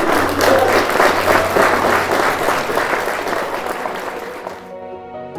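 Crowd of guests applauding, a dense, continuous clapping that cuts off abruptly near the end as music takes over.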